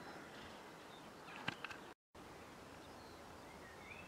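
Faint outdoor background with small birds chirping now and then, a few sharp clicks about a second and a half in, and the sound cutting out completely for a moment about halfway.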